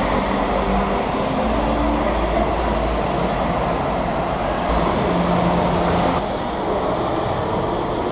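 1:6 scale Astra HD7 model truck driving off-road: steady mechanical running with a low rumble and a faint whine, changing slightly about six seconds in.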